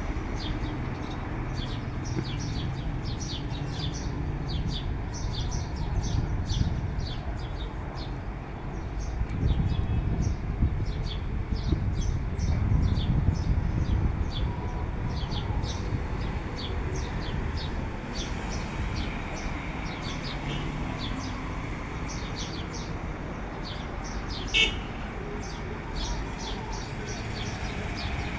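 Small birds chirping in quick, dense runs of short high calls, over a low background rumble that swells about a third of the way in. One louder, sharper call stands out near the end.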